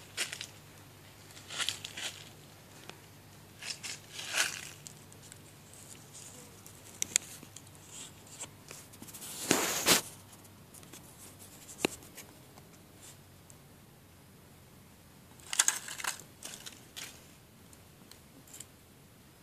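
Short, scattered rustles and crackles of dry leaf litter and of the phone being handled. The loudest comes about ten seconds in, with another cluster near sixteen seconds.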